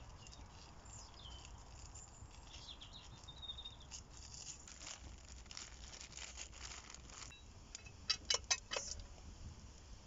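Crinkling of a plastic bag and soft pattering as flour is poured from it into a small pot, followed by a quick run of about five sharp clicks near the end.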